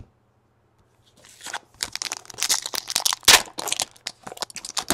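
Foil trading-card pack wrapper crinkling and tearing as it is opened by hand, starting about a second in as a run of quick, crackly rustles.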